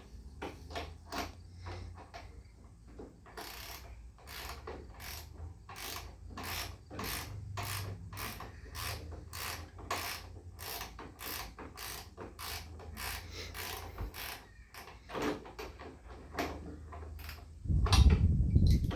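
Ratchet wrench clicking in steady repeated strokes, about two to three a second, backing a nut off a bolt that is held tight in the wood. A loud low thump comes near the end.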